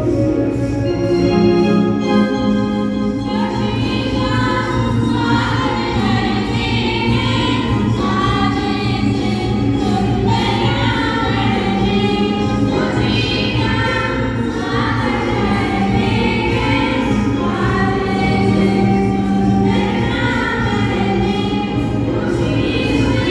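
Group of girls singing together into microphones over a PA, with a sustained instrumental accompaniment; the voices come in a few seconds in over the held accompaniment.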